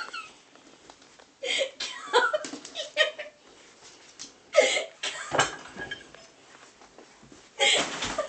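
People laughing and chuckling in short bursts, with quieter gaps between them.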